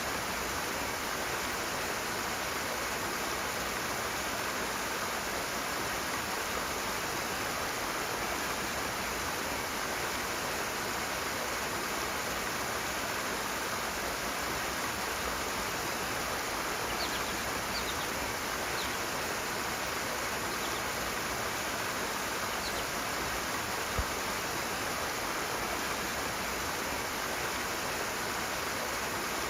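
Steady rush of flowing water, an even, unbroken roar.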